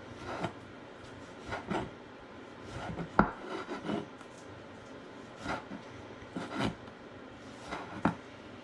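Kitchen knife slicing tomatoes on a cutting board: irregular knocks of the blade hitting the board, with short scraping strokes between, the sharpest knocks about three seconds in and near the end.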